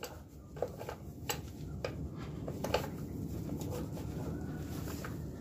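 Light clicks and taps from hand work on the parts of a dismantled 150cc Lifan ATV engine, a few spaced about a second apart, over a low steady rumble.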